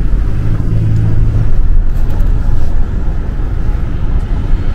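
Toyota RAV4 Hybrid, heard from inside the cabin, driving slowly while towing a caravan: a steady low rumble of engine and road noise. A stronger low engine hum swells briefly about half a second in and fades after about a second.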